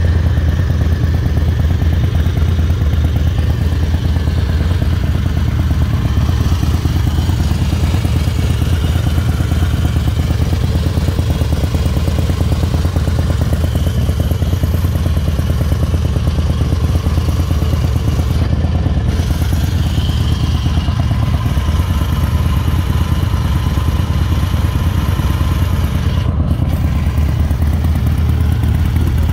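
2000 Harley-Davidson Night Train's Twin Cam 88B V-twin engine idling steadily.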